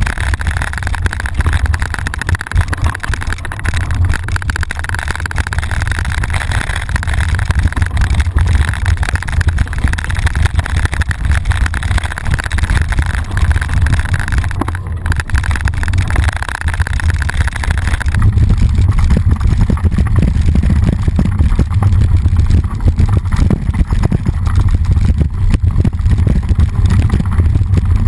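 Wind buffeting a handlebar-mounted action camera's microphone as a mountain bike rolls fast down a dirt trail, with constant rattling and clatter from the bike and the loose camera mount over the bumps. About two-thirds of the way through, a higher hiss drops away and the low wind rumble grows heavier.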